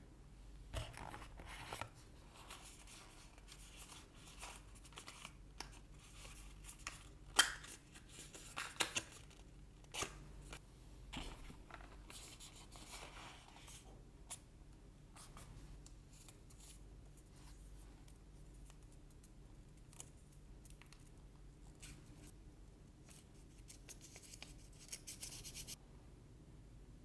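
Quiet close-up handling of cardboard packaging, paper leaflets and a plastic earbud charging case: scattered clicks, taps and rustles, the sharpest about seven seconds in, with a short hissy rustle near the end.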